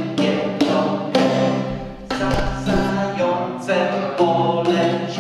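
Acoustic guitar strummed in chords about twice a second, with voices singing along.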